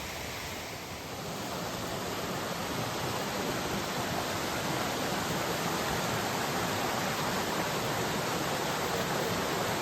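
Steady rushing of the Rose River, water running over its cascades, swelling a little about a second in and then holding even.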